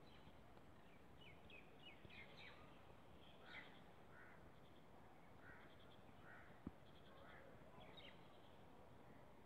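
Faint bird calls over a low hiss: a few quick downward chirps about a second in, then scattered short calls, with a single soft click about two-thirds of the way through.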